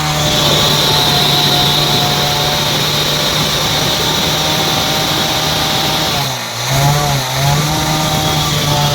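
Bajaj Discover 100cc single-cylinder four-stroke engine running with a Harpic and petrol mix in it, being run to flush out the engine. It runs steadily at first, then is revved up and down a few times near the end.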